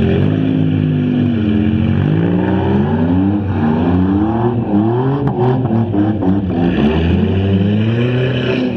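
Stock front-wheel-drive derby cars' engines revving on a dirt track, the pitch rising and falling over and over, with a few short knocks about five seconds in.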